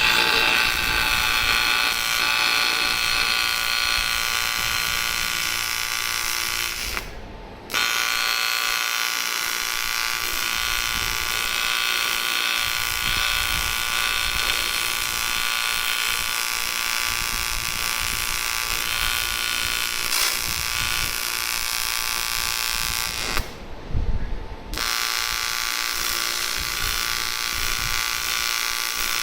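AC TIG welding arc on aluminium buzzing steadily, cutting off about seven seconds in and again near the end before being struck again each time.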